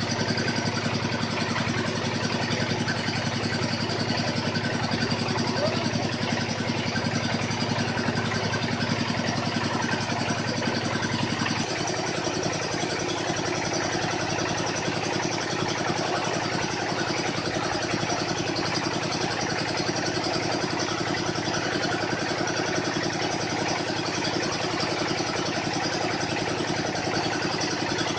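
Engine of a water-well drilling machine running steadily, its tone shifting about twelve seconds in.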